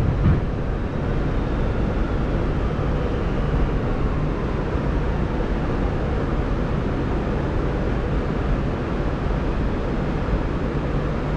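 Steady low rumble inside an R211A subway car as the train slows along the platform, with a faint falling whine of the motors as it brakes.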